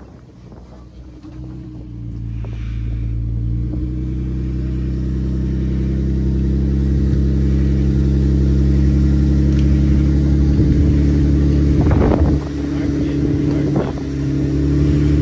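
Jeep engine working under load as it crawls up a rock obstacle, growing louder over the first few seconds and then running steadily, with a couple of sharp knocks near the end.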